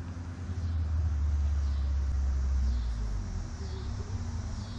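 Low motor-vehicle engine rumble that swells about a second in and fades after about three seconds.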